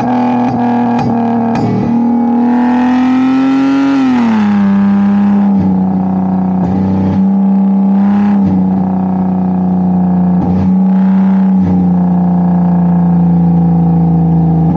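Lexus IS300's 2JZ inline-six engine held at steady high revs, creeping up slightly and then dropping to a lower held rpm about four seconds in. There are a few sharp cracks in the first two seconds.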